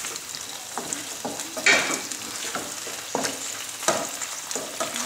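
Penne and tomato sauce sizzling in a frying pan while being stirred, with irregular scrapes and knocks of the utensil against the pan; the sharpest knocks come just under two seconds in and about four seconds in.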